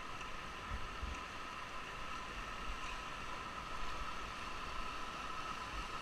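Whitewater rapids rushing steadily around an inflatable raft, with a few short low thuds on the microphone.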